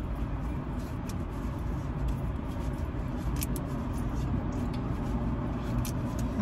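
Steady low rumble of vehicles heard from inside a car cabin, with a few faint clicks.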